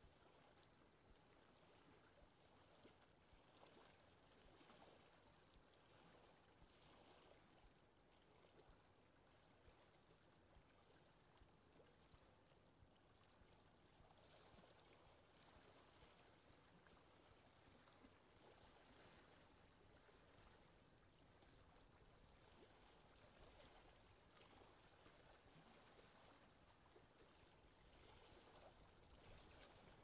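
Faint lake ambience: small waves lapping gently at the shore, an even watery hiss that swells and fades every few seconds.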